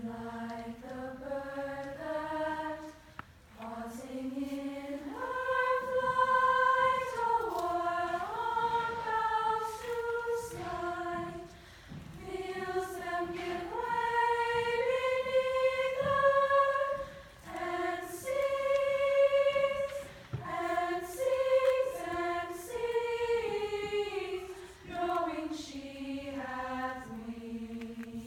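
Choir singing in slow, sustained phrases, ending on a long low held note.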